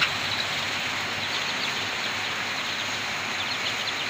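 Many Kaveri chicks peeping at once in a brooder, a steady chorus of short, high overlapping peeps.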